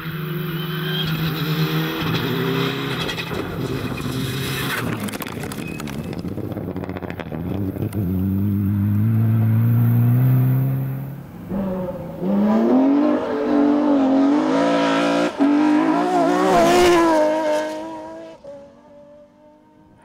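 Rally car engines under hard acceleration, revs climbing and dropping sharply with each gear change. About eleven seconds in the sound dips, then a second run of hard acceleration follows and fades away near the end.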